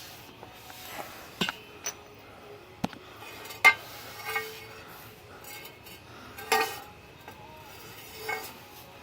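Irregular metallic clinks and taps of a rear lower bar and its mounting bolts being handled against each other and the car's underside, about seven in all, the loudest a little over a third of the way in and again past the middle.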